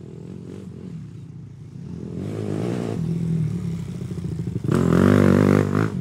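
Motorcycle engine running and revving, building up, with the loudest rev late on, its pitch climbing and falling.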